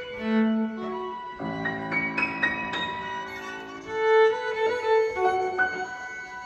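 Chamber group of bowed strings (two violin-family instruments and a cello) with grand piano playing a contemporary classical piece. Held string notes sound over a few struck piano notes one and a half to three seconds in, and a louder held string note swells about four seconds in.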